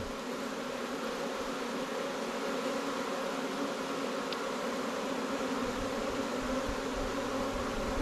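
Steady buzzing of many honey bees flying around a hive entrance as a newly caught swarm moves in. Bees are fanning at the entrance, which the beekeeper takes as a sign that the queen is inside.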